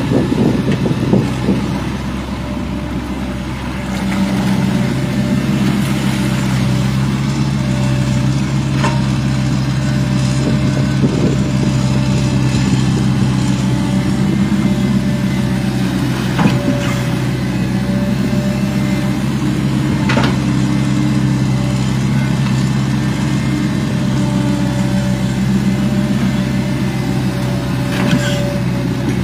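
Hydraulic excavator's diesel engine running steadily under working load, with a few sharp clanks from the machine as it works in the mud.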